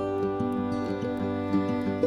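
Background music: a gentle instrumental piece of plucked string notes.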